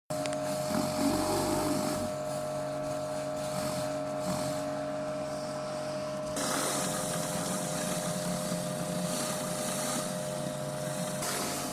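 Pressure washer running steadily, with the hiss of the water spray getting louder about six seconds in.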